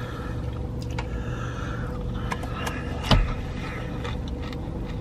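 Steady low hum of a car's interior, with a faint steady tone running through it. Scattered small clicks of eating from cardboard food boxes sound over it, and one louder knock comes about three seconds in.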